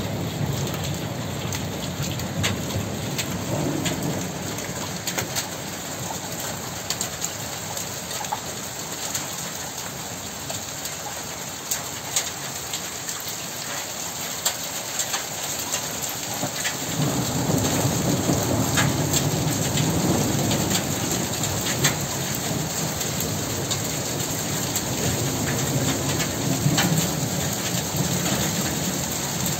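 Steady rain with sharp drop impacts, and a low rumble of thunder that swells a little past halfway and keeps rolling.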